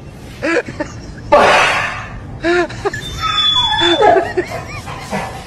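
A person laughing in short bursts, with a loud breathy exclamation about a second and a half in.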